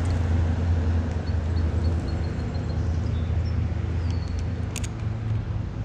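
Steady low engine hum, like a motor vehicle running nearby, with a string of faint high peeps a second or two in and a few light clicks near the end.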